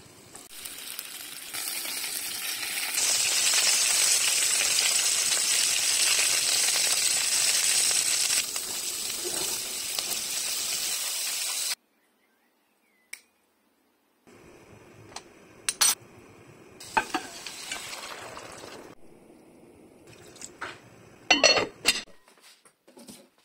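Rabbit pieces frying in olive oil with a loud, steady sizzle that grows louder a few seconds in, then cuts off suddenly. After a short gap there are a few quieter sharp clicks and clinks.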